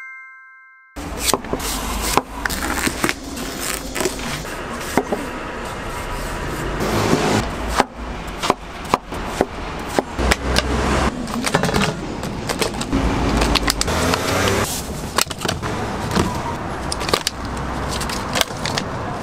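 A short chime rings out, then a kitchen knife cuts watermelon on a wooden cutting board: many sharp chops and knocks of the blade on the wood, with scraping, over a steady hum of street traffic.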